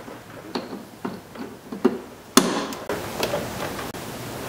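Small plastic clicks and taps as a wiring connector is pushed onto the windshield washer reservoir's level sensor, with one sharp snap about halfway through and a brief rustle after it.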